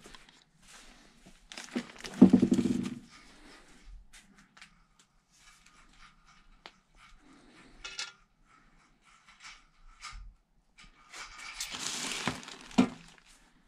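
Rummaging on a garage shelf: clinks and knocks from an aftermarket scooter exhaust pipe being handled, and a plastic bag rustling near the end as the wrapped pipe is pulled out. A short, loud pitched sound about two seconds in stands out above the rest.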